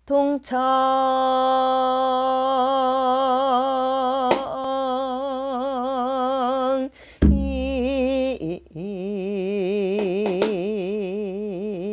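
A woman singing pyeong-sijo, Korean classical sung poetry, in long drawn-out notes. She holds one long steady note, breaks for a breath about seven seconds in, then sustains a lower note with a wide, wavering vibrato.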